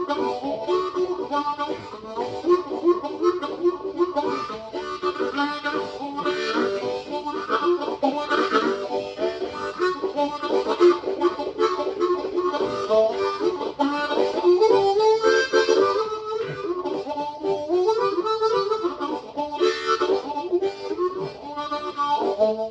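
Harmonica playing a tune, a quick run of notes and chords following each other without a break.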